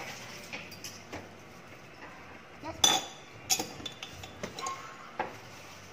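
A metal table knife clinking against the inside of a small glass jam jar as jam is scooped out. Scattered light clinks and scrapes, the loudest about three seconds in.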